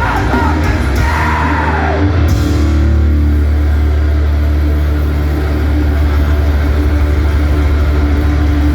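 Live hardcore punk band playing loud through the PA. Shouted vocals trail off in the first couple of seconds, then the guitars and bass hold one low, steady, ringing chord.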